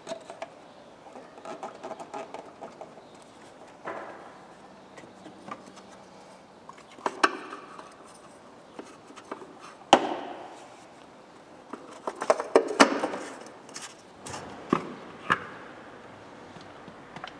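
Hands working on engine parts under the bonnet: scattered clicks, taps and knocks of plastic caps, a funnel and tools being handled. There is a sharp knock about ten seconds in and a short burst of clatter a couple of seconds later.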